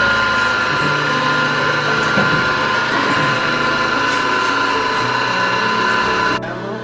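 Electric pasta sheeter running: its motor and gear-driven rollers give a steady mechanical whine while egg-pasta dough is fed through, and the whine cuts off near the end.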